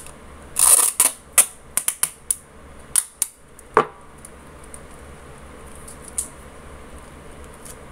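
Objects handled on a wooden tabletop: a quick run of clicks, taps and paper rustles over the first few seconds, among them a roll of duct tape set down on the table, then only a faint low hum.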